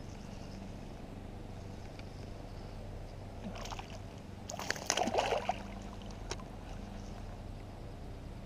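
Water sloshing and splashing around a kayak, with a short burst of splashing about four to five and a half seconds in, over a steady low hum.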